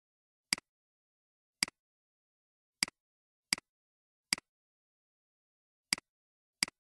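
Computer mouse button clicks: seven sharp clicks at uneven intervals, each a quick double tick, with dead silence between.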